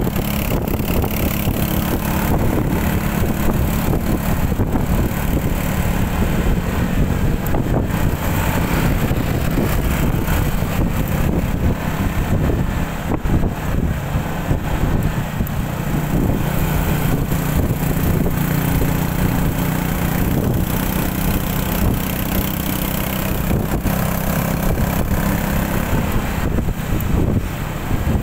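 Motor scooter engine running steadily while riding at around 40 km/h, a constant low drone with road rumble.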